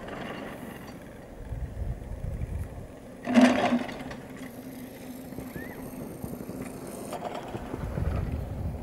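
Surface ski lift's haul rope running over a tower's sheaves: a loud clatter about three and a half seconds in as the rope and hangers pass the tower, then a low steady hum. Low rumbling comes and goes twice around it.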